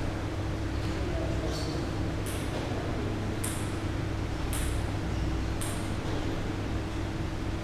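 Table tennis balls tapping about once a second, each a faint sharp click, over a steady low electrical hum in the hall between points.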